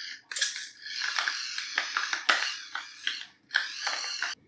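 Pepper mill grinding peppercorns onto raw beef short ribs, in two spells of grinding with a short pause near three seconds in.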